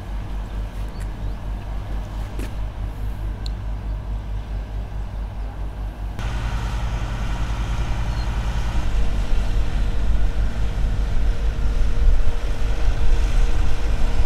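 A motor vehicle's engine running with a low, steady throb. About six seconds in, the sound changes abruptly and grows louder.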